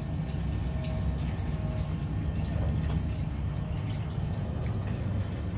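A steady low hum with a few evenly spaced pitches, like a small motor or household appliance running.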